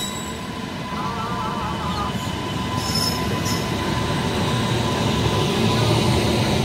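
A WAP7 electric locomotive and its passenger coaches rolling past close by on the next track. The rumble of wheels on rails grows louder as the coaches go by, with short high-pitched squeaks about three seconds in.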